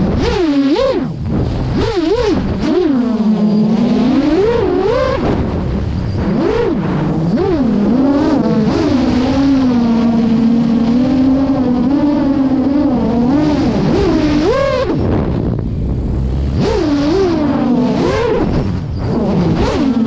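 8-inch FPV freestyle quadcopter's two-blade MasterAirscrew 8x4.5 propellers on Hyperlite 2807.5 1322 kv motors, whining in a stack of tones that hums low and swoops up and down in pitch again and again as the throttle is punched and eased. Wind rushes past the onboard camera's microphone.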